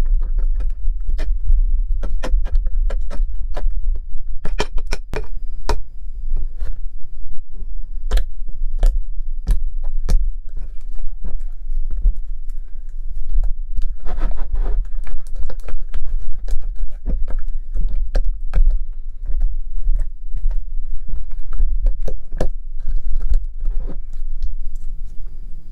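Flour-and-toothpaste slime being mixed with a plastic spatula in a small glass bowl and then kneaded and pulled by hand. It makes many quick, irregular sticky clicks and squelches over a steady low hum.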